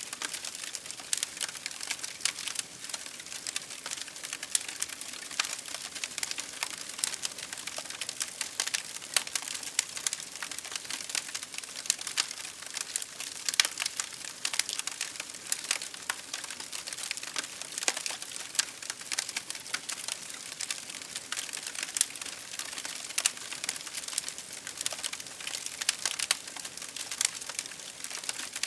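Campfire crackling: burning firewood gives a dense, unbroken stream of small crackles and sharp pops, many a second.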